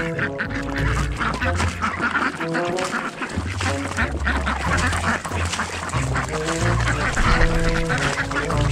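A flock of ducks, mostly Khaki Campbells, quacking busily and continuously over background music with a stepping bass line.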